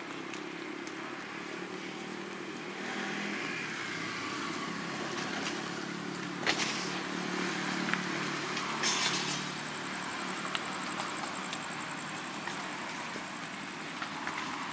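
Road traffic going by, cars and motorbikes running, with two sharp knocks about six and a half and nine seconds in.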